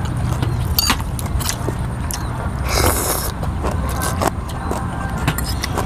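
People slurping rice noodles off spoons, with a louder slurp about three seconds in and a few light clicks of spoons against glass bowls, over a steady low hum.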